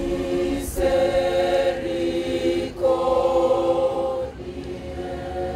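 Women's church choir singing a cappella in held chords, moving to a new chord about a second in, again near three seconds, and once more past four seconds, where the singing turns quieter.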